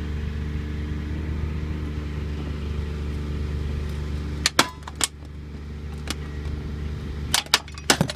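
Engine of the pipe-bursting rig running steadily, dropping in level about four and a half seconds in; then a series of sharp cracks and pops as the 4-inch cast iron pipe fractures and small pieces pop off.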